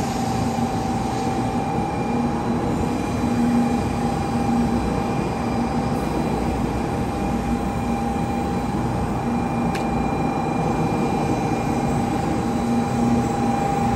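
N700A Shinkansen train rolling slowly along the platform as it pulls in and stops, running with a steady whine that fades out near the end.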